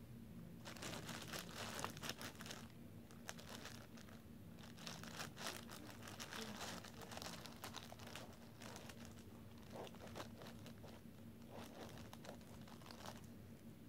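Hands mixing and kneading wood-glue slime in a plastic bowl: quiet sticky crackling and crinkling in several bursts with short pauses, starting about half a second in.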